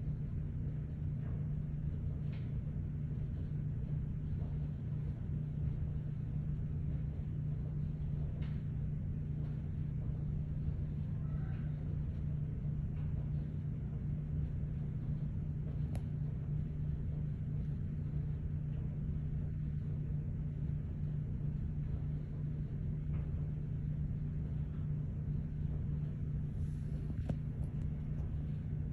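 Steady low background hum, with a few faint scratches and taps, consistent with a bearded dragon's claws pawing at a painted door.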